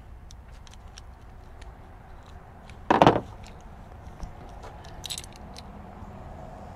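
Small metal clicks and light jingling from a bicycle suspension seat post's clamp hardware and an Allen T-wrench being handled, with one loud knock about three seconds in.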